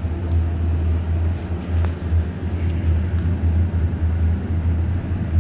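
Steady low hum inside a moving Otis hydraulic elevator cab, mostly from the cab's ventilation fan, which is really loud; the elevator's own hydraulic machinery makes almost no noise.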